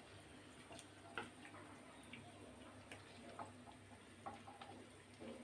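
Fish shallow-frying in hot oil in a pan, with faint, scattered pops and crackles of spitting oil at an irregular pace. The loudest pop comes about a second in.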